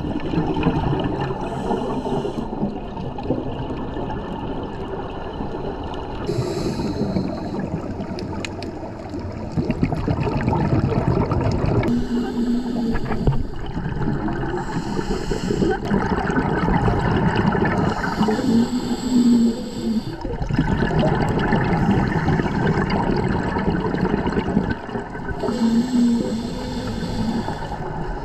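Scuba diver breathing through a regulator underwater. Exhaled bubbles gurgle and rumble continuously, surging on each breath about every six to seven seconds, with a short low tone on some breaths.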